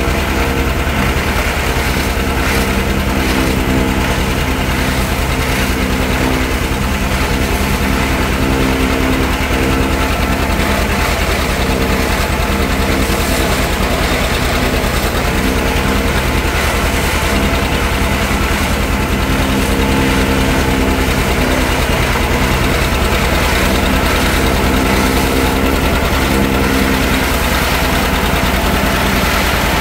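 Vintage John Deere two-cylinder tractor engine running steadily under load while chopping corn, mixed with the constant whirring rush of the forage chopper at work.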